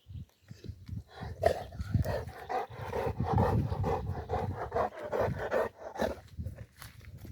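Cats scuffling: a drawn-out, wavering cat cry mixed with knocks and bumps, starting about a second in and easing off near the end.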